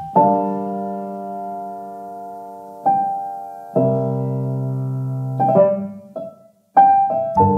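Background music: slow piano chords, each struck and left to ring and fade before the next.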